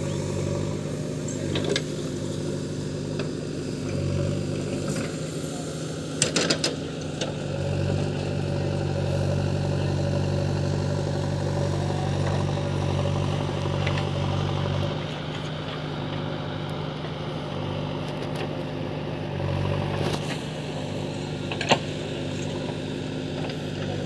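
JCB backhoe loader's diesel engine running steadily at working revs, with a few sharp clicks about six seconds in and another near the end.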